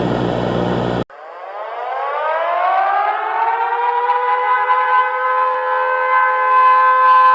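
About a second of loud buzzing static that cuts off abruptly, then a civil defence siren winds up from low, its several tones rising together for about three seconds before holding a steady wail.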